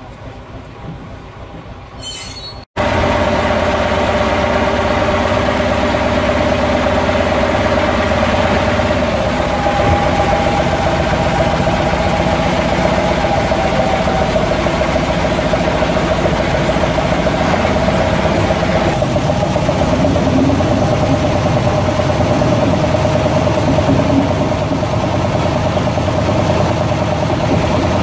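A small Baguley-Drewry diesel locomotive's engine running steadily, recorded close up, with a steady humming tone over it. Before that, a quieter stretch of train noise on the rails cuts off abruptly about three seconds in.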